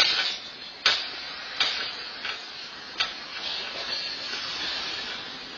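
A commotion picked up by a home security camera's microphone: a steady hiss with four sharp knocks or bangs in the first three seconds.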